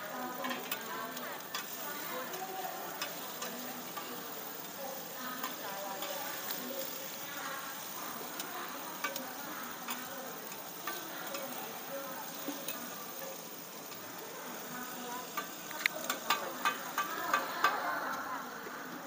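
Shellfish and egg frying with a steady sizzle on a large flat griddle while metal spatulas scrape and stir them, with scattered clicks of metal on metal. About sixteen seconds in comes a quick run of sharper metal clanks.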